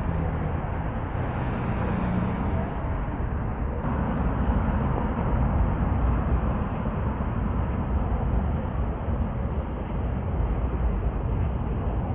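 Steady low rumble of outdoor street traffic, with no single event standing out.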